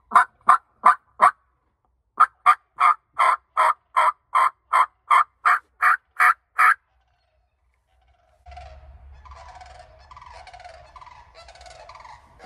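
Hunter's diaphragm mouth call making turkey yelps: a short run of four sharp, raspy notes, then after a pause a longer run of about fourteen at about three a second. After a gap, a much quieter, rougher warbling sound with a low rumble under it runs through the last four seconds.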